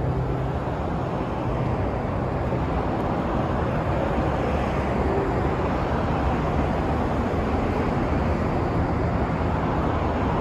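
Steady road traffic noise from a street, swelling slightly about halfway through as a vehicle goes by.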